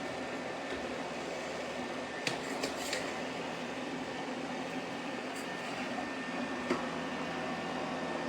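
Robot vacuum running with a steady whir of motor and brushes as it cleans the floor. A few light clicks come a couple of seconds in and once more later.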